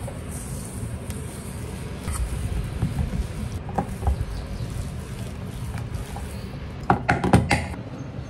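Boiled potatoes being mashed with a hand potato masher in a stainless steel bowl: soft, irregular pressing with the metal masher now and then clicking against the bowl. A quick run of sharper knocks comes about seven seconds in.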